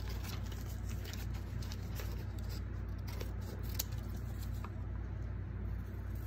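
Scissors snipping through a sheet of white paper, a series of small irregular snips with light paper rustle, over a steady low hum.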